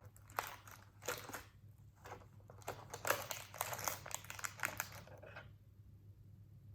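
A cat handling a wrapped candy, the wrapper crinkling and rustling in irregular bursts that stop about five and a half seconds in. A faint low hum runs underneath.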